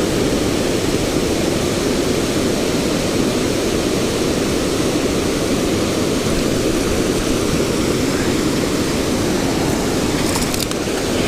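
Steady rushing of fast river water over a riffle, loud and even throughout, with a few faint clicks near the end.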